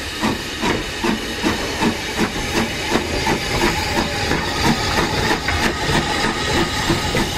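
Steam locomotive Lambton, Hetton & Joicey Colliery No. 29, an 0-6-2 tank engine, working along the line. Its exhaust chuffs in a steady rhythm of about three beats a second over a continuous hiss of steam.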